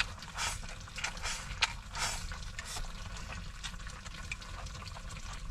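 Someone chewing food in a few even bites, about three quarters of a second apart, with small clicks of utensils after, over a low steady hum.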